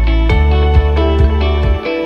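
Background music: a guitar-led track with a steady beat and a strong bass line.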